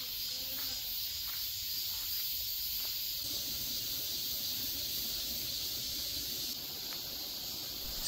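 Steady high-pitched chorus of summer insects in the woods.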